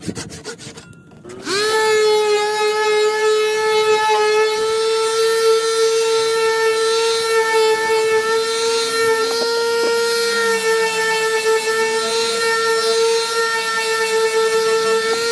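Last few hand-saw strokes, then an electric sander spins up about a second and a half in and runs with a steady high hum while sanding a wooden tenon.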